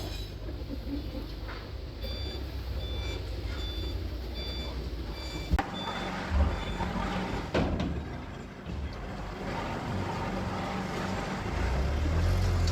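Forklift engine running with its reversing alarm beeping, about six evenly spaced beeps, then a sharp knock and a clank.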